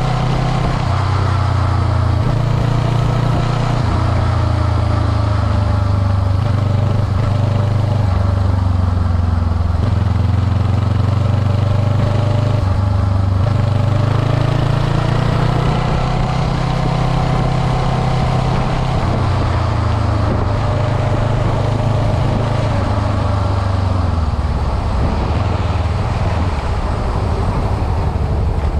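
Motorcycle engine running at highway speed, with a steady rumble of wind on the microphone; the engine note drifts gently up and down as the speed changes.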